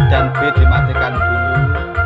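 Music played loud through a karaoke speaker system during a sound check: a heavy bass line from the subwoofer under long held keyboard-like melody notes.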